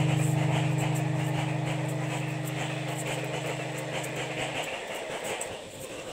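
Kitchen knife scraping and shaving the skin off a raw root crop in quick repeated strokes, a scratchy rasp about three times a second. A low guitar chord from background music fades out under it.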